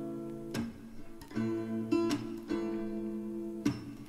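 Background music: an acoustic guitar strumming chords in an instrumental break of a song, changing chord every second or so, with no singing.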